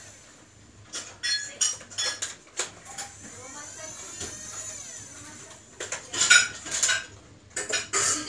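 Irregular clinks and clatters of small hard objects being handled. They are scattered through the first few seconds, then come as a busier, louder run from about six seconds in.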